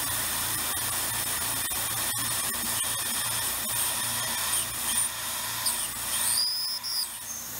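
Tormach PCNC 770 CNC mill spindle drilling a deep hole in aluminium with a small drill bit, run dry without coolant: a steady high whine over a hiss. Past the middle come a few brief squeals that rise and fall, before the sound drops a little near the end.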